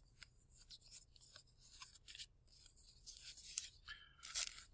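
Faint crinkling and scratching of a thin plastic card sleeve and cardboard card edges as a hockey card is handled and slid into the sleeve, with scattered small ticks that grow busier near the end.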